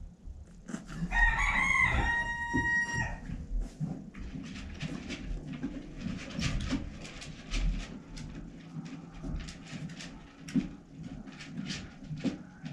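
A rooster crowing once, starting just under a second in, the call ending on a long held note. It is followed by a run of small, irregular scratching and tapping sounds.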